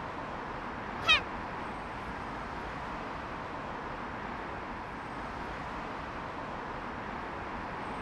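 A single short, high-pitched cry sweeping quickly upward about a second in, then a steady low background hiss.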